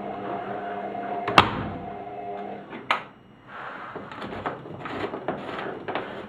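Washing machine running with a steady whining hum, a sharp knock about one and a half seconds in. The hum stops about three seconds in, followed by irregular clunks and clicks.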